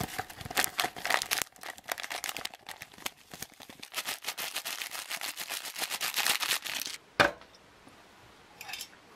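A spoon stirring hot chocolate in a cup: a rapid run of light clicks and scrapes for about seven seconds. One sharp knock follows about seven seconds in.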